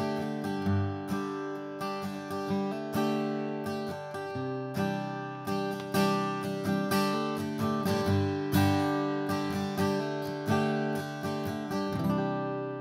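Atkin Essential OM acoustic guitar strummed with a thick 1.5 mm D'Andrea Pro Plec pick: ringing chords struck about twice a second, with a bright attack on each stroke.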